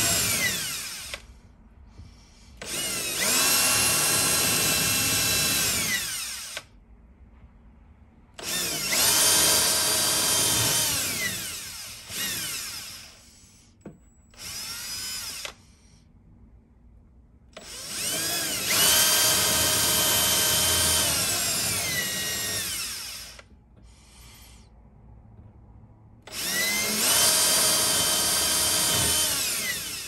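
Power drill boring into a prefab cabinet's wood panel, run in about five separate bursts of a few seconds each to deepen a cam-lock hole. Each burst is a high whine that rises as the motor spins up and falls away when the trigger is released.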